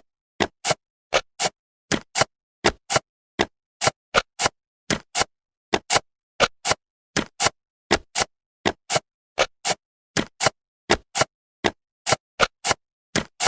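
Sharp, dry clicks, two or three a second in uneven groups with silence between them: a cartoon sound effect of jigsaw puzzle pieces snapping into place.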